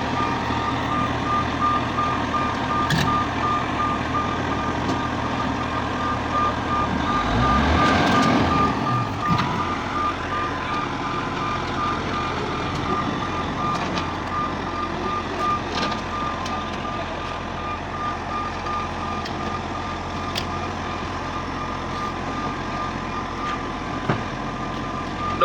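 Heavy diesel road-construction machinery running steadily, with a reversing alarm beeping at an even pace. The machine noise swells louder for a couple of seconds around eight seconds in.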